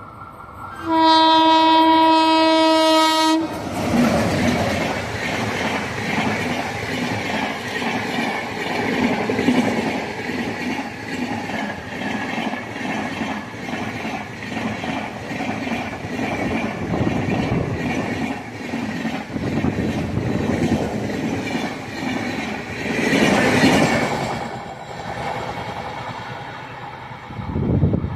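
Indian train sounding one long, loud horn blast about a second in, then rushing past at speed with a steady clatter of wheels over the rail joints for over twenty seconds. The noise swells briefly near the end before it cuts off.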